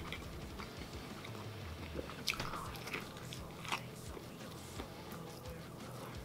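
A person biting into and chewing a huge grilled chicken sandwich on a soft bun. Quiet mouth and bread sounds, with a few small crackles between about two and four seconds in.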